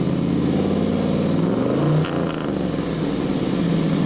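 1969 Camaro Z/28's 302 V8 running with a lumpy, motorboat-like idle. Its pitch rises briefly and falls again about two seconds in.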